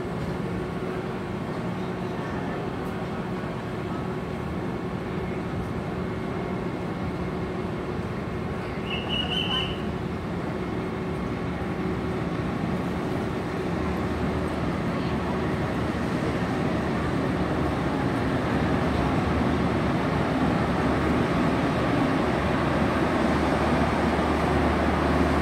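Diesel railcar train approaching along the platform, its low engine hum coming in about halfway through and the overall sound growing steadily louder as it nears. A brief high-pitched tone sounds about nine seconds in.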